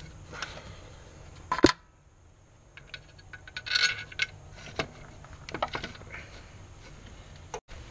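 Scattered metallic clinks and knocks of hand tools and parts in a car's engine bay during alternator work, with one sharp knock about one and a half seconds in and a quick run of clinks near the middle.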